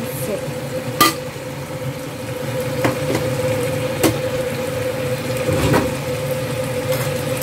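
Seasoned chicken pieces cooking in a nonstick wok over a steady hum, with about four sharp clicks spread through.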